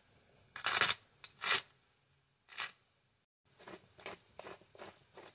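Salt and pepper grinders being twisted by hand. One mill gives a few gritty grinding strokes, and after a short break a second, stainless-steel mill gives a quicker run of short grinds, about three a second.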